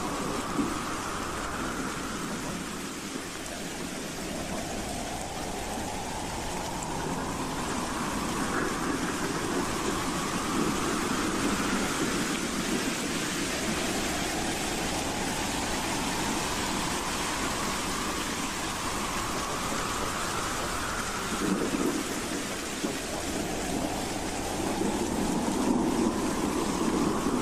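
Howling wind: a steady rushing noise with a low rumble, and slow rising whistles, about three of them, each swelling over several seconds.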